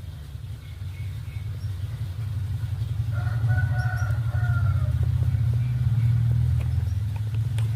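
A low, steady rumble that swells partway through, with a rooster crowing once in the distance, about a second long, near the middle.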